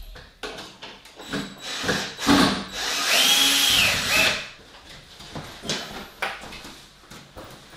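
Scattered knocks and scrapes of boards being handled. About three seconds in, a handheld power tool's motor spins up with a whine, runs for about a second and a half, and winds down.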